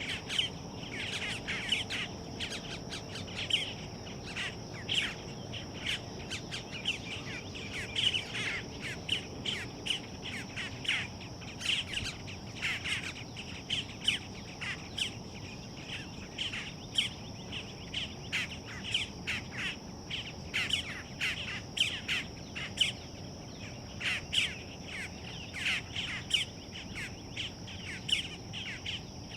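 Boat-tailed grackles calling: a rapid, unbroken series of short, sharp calls, several a second, the begging of hungry fledglings waiting to be fed. A steady high-pitched hum lies underneath.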